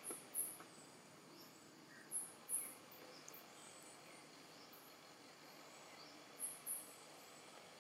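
Outdoor insect sounds: a very high-pitched insect chirping in pairs of short notes every few seconds over a faint steady hiss, with a few faint bird chirps.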